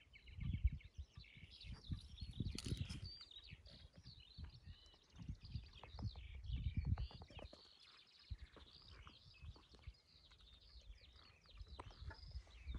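Several small birds chirping and singing, with irregular low rumbles beneath.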